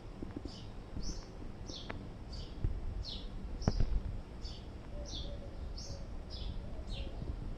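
A bird chirping over and over, short falling chirps at an even pace of about two a second. A few sharp knocks and clicks sound over it, the loudest a little under four seconds in.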